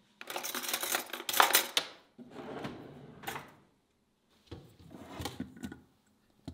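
Kitchen handling noise: three bursts of clattering and rustling from dishes, utensils and ingredient containers being worked with. The first burst is the loudest.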